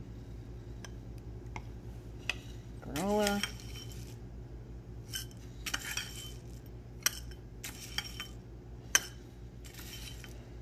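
Metal spoon clinking and scraping against a glass bowl and a tall drinking glass while yogurt and granola are spooned in, with scattered sharp clinks, the loudest near the end, and short scraping rustles. A brief rising hum of a voice about three seconds in, over a steady low hum.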